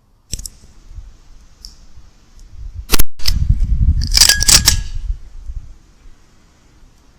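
A Weihrauch HW100 .22 pre-charged air rifle fires once about three seconds in, a single sharp crack. Around it come small clicks, then low handling noise and a quick cluster of sharp metallic clicks a second or so after the shot.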